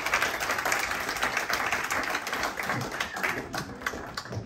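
Theatre audience applauding, the clapping thinning out and dying down over the last second or so.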